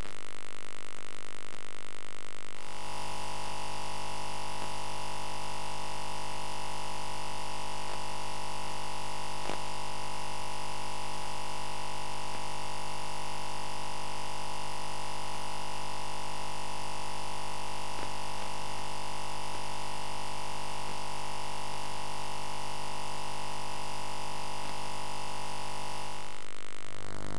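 A steady, unchanging electronic test tone with a low buzzing hum and hiss beneath it. It switches on suddenly about three seconds in and cuts off shortly before the end.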